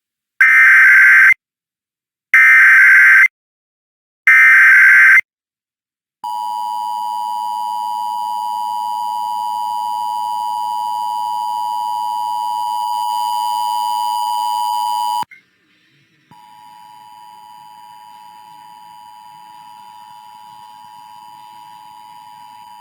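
Emergency Alert System test received off the air: three one-second bursts of SAME header data tones about a second apart, then the EAS two-tone attention signal held for about nine seconds. It cuts off abruptly, and a fainter steady tone starts a second later.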